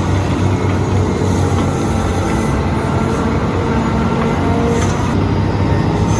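Large diesel engine of heavy earthmoving machinery running steadily under load, a continuous low hum with a deep fundamental.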